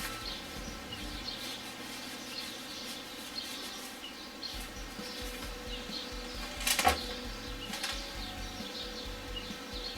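Birds chirping faintly and repeatedly in the background, with one brief loud clatter a little before seven seconds in.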